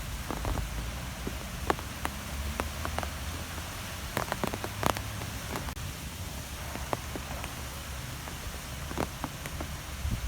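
Outdoor wind ambience: a steady low rumble with a faint hiss, scattered with irregular sharp ticks, a few of them bunched together about four to five seconds in.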